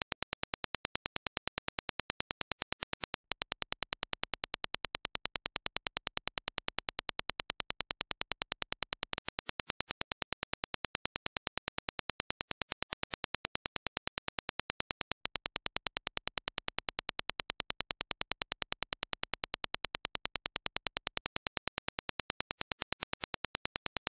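A rapid, evenly spaced train of sharp clicks, several a second: the reference Dirac impulse test signal used to judge headphone transient speed.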